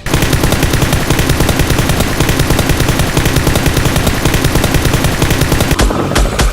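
Sustained automatic gunfire sound effect: a rapid, unbroken rattle of shots, changing just before the end to fewer, heavier shots with low thumps.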